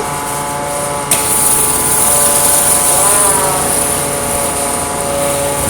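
Gas engine of a pressure washer with vacuum water recovery running steadily, with a high hiss that starts abruptly about a second in and holds.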